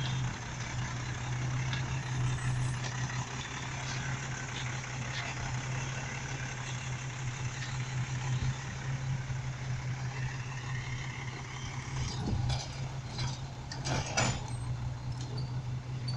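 Automated side-loader garbage truck's engine running with a steady low drone as the truck drives through the intersection, with a few sharp clicks or knocks about twelve and fourteen seconds in.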